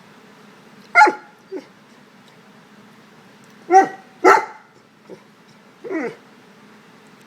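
A dog giving short barks and yips: a loud one about a second in, a close pair of loud barks near the middle, and a shorter one falling in pitch near the end, with a couple of faint yips between.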